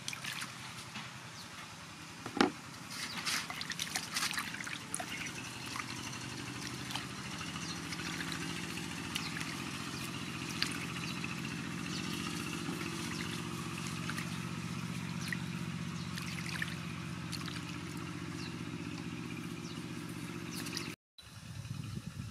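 Raw squid tipped into a metal basin of water and washed by hand: splashing and sloshing water, with a sharp knock about two seconds in. A steady low hum runs underneath from about a third of the way in.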